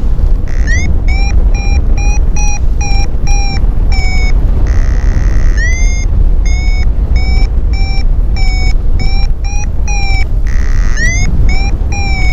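Paragliding variometer beeping rapidly, about three short rising beeps a second: the climb tone of a glider going up in a thermal. Twice the beeping gives way to a longer steady tone. Heavy wind rumble on the microphone throughout.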